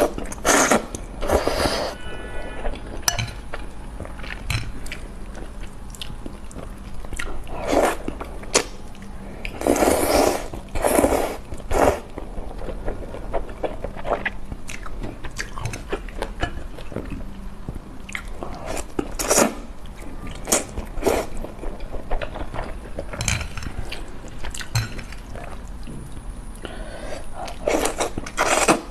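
Close-up eating sounds of spicy noodles: loud wet slurps of up to a second each, recurring every few seconds, with chewing and smacking between them.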